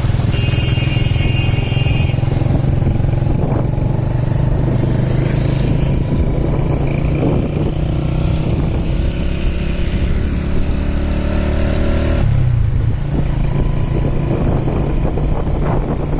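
Vehicle engine running steadily while driving along a road, its low note dropping about twelve seconds in.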